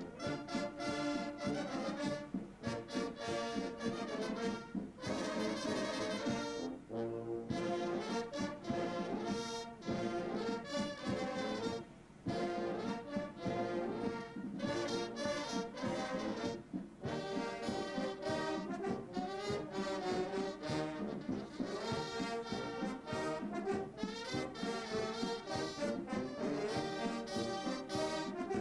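Brass band playing music, with trombones and trumpets sounding sustained chords.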